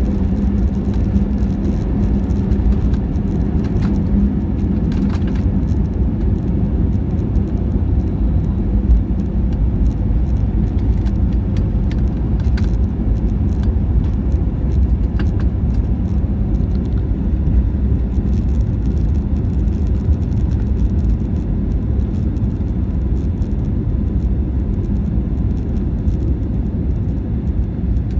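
Cabin noise of an Airbus A320neo on takeoff and initial climb: its two Pratt & Whitney PW1127G geared turbofans at high thrust, a loud steady rumble with a low hum that fades over the first few seconds and a few faint clicks.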